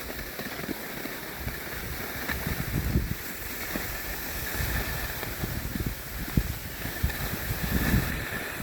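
Skiing down a snowy slope: a steady scraping hiss of sliding over the snow, with wind gusting on the microphone in irregular low rumbles.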